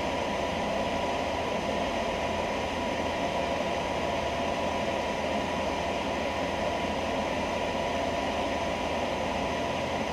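Steady electrical hiss with a thin, constant whine from the Tecnam P2010 cockpit audio, with the avionics powered and the engine not yet started.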